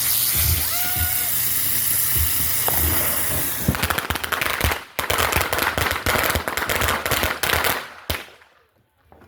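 A lit firework hissing and spraying, with a short whistling tone about a second in, then from about four seconds in a rapid string of loud bangs and crackles, like a firecracker string, that stops abruptly about eight seconds in.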